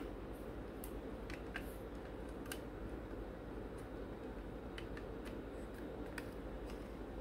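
Light, irregular clicks and taps of hard plastic scale-model kit parts being handled and pressed together by hand during a dry fit, about eight in all, over a steady low hum.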